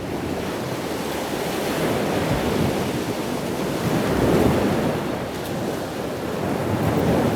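Ocean surf breaking on a sandy beach, a continuous wash that swells and eases in about three surges, with wind buffeting the microphone.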